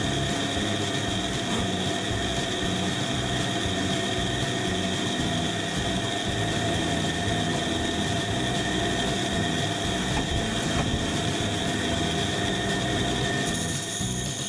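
Pégas fine-cut band saw running with a steady whine of several held tones while its narrow blade cuts a small block of wood.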